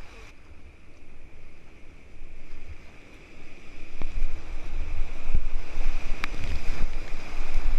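Whitewater rapids rushing around a kayak's bow, with water and wind buffeting the camera microphone. About four seconds in it gets louder as the boat runs through the waves and spray hits the lens, with a few sharp slaps of water or paddle.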